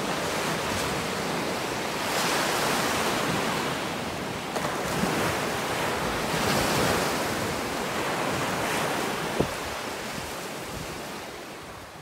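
Ocean surf: small waves breaking and washing up a sandy beach, a steady wash that swells as each wave breaks, then fades out near the end.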